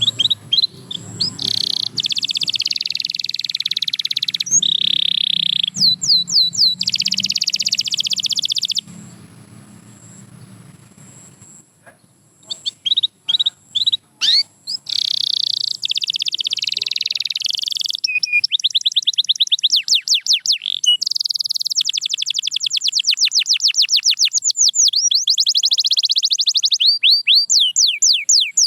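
Canary singing in long, fast trills and rolls of rapidly repeated notes, with a pause of a few seconds about a third of the way in.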